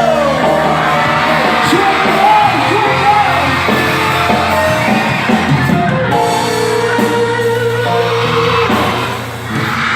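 Music with a singing voice and instruments, including guitar.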